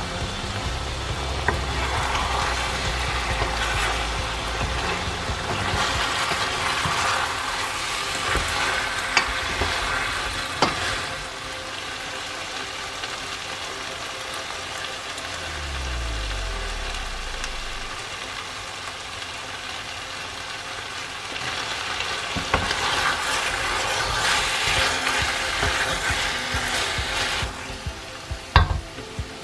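Beef chunks sizzling in a stainless steel pot, stirred in two louder spells, with a few sharp clicks, the last near the end.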